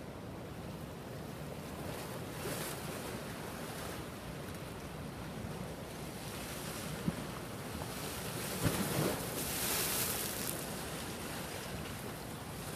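Storm surf surging and breaking against a seawall, with wind buffeting the microphone. A bigger wave breaks with a loud rush of spray a little past the middle, just after a couple of sharp knocks.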